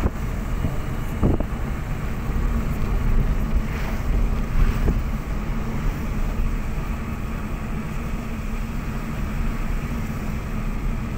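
Car driving along a rough dirt road, heard from inside the car: a steady low rumble of road and engine noise with wind noise, and a couple of short knocks in the first two seconds.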